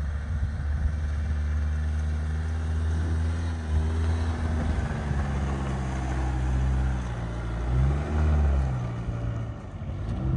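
2024 Toyota Tacoma TRD Off-Road pickup's engine running under load as the truck climbs a dirt slope, a steady low drone with a brief rise and fall in revs about eight seconds in.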